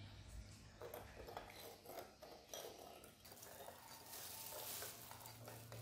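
Faint clinks and scrapes of a metal spoon stirring sugar into pandan leaf juice in a ceramic bowl, over a low steady hum.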